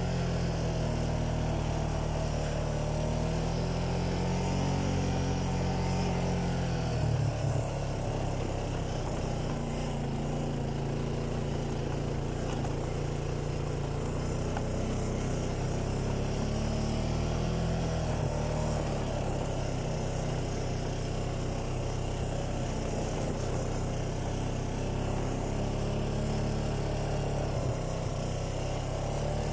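Honda ATV engine running as it rides a dirt trail, its pitch rising and falling with the throttle and changing about seven seconds in.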